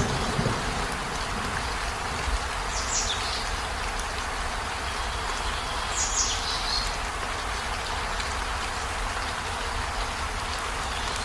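Steady rain falling on a river, with the tail of a thunder rumble dying away at the start. Two brief high, falling chirps come about three and six seconds in.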